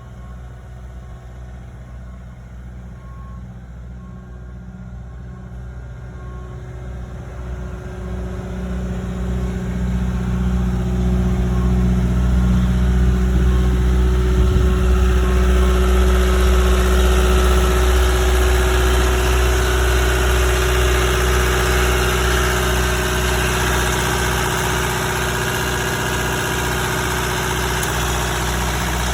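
Cat 259D compact track loader's four-cylinder diesel engine running steadily, growing clearly louder and fuller from about eight seconds in. A faint regular beep sounds about once a second during the first several seconds.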